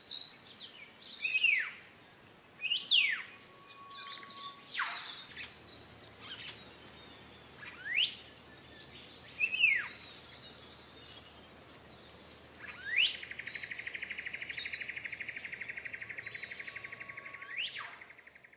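Wild songbirds calling with short, sharply sweeping whistled notes, one every second or two. Near the end, a long rapid trill holds steady on one pitch for about five seconds.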